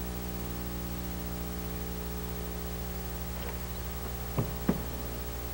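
Steady electrical hum with its harmonics under a hiss, from an old video-tape camcorder recording, with two brief faint sounds close together about four and a half seconds in.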